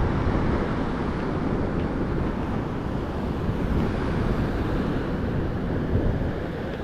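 Wind buffeting the microphone over the steady noise of ocean surf, with no distinct events.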